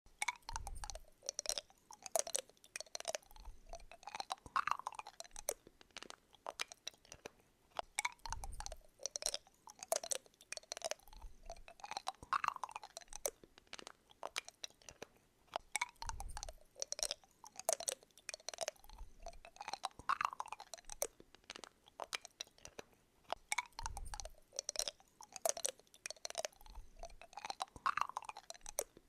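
Dense crunching clicks with short rising squeaks, in a pattern that repeats about every eight seconds, with a low thud at each repeat.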